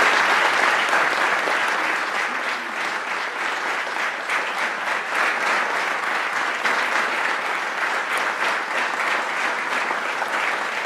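Audience applauding, a dense steady clapping that is loudest at the start and eases a little over the first few seconds.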